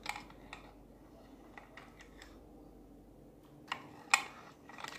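Light plastic clicks and taps from a play credit card being used on a pink plastic toy payment machine, with two sharper clicks near the end.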